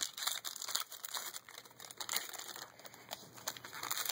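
Foil wrapper of a 2012 Upper Deck SP Authentic football card pack crinkling as it is torn open and worked in the hands, a quick irregular crackle.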